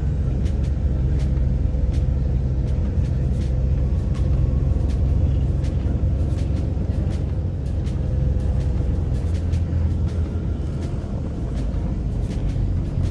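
Coach bus engine running, a steady low rumble heard from inside the passenger cabin, with scattered light clicks and rattles.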